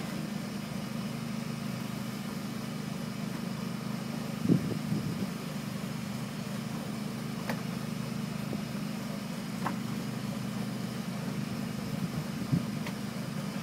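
A fishing boat's engine running steadily with a low hum, with a few short knocks on board, the loudest about four and a half seconds in.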